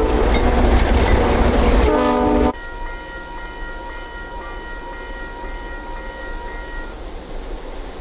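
ALCO diesel locomotives passing close with a loud low rumble, the multi-tone horn sounding again briefly about two seconds in. The sound then cuts abruptly to a quieter, more distant horn held until about seven seconds in.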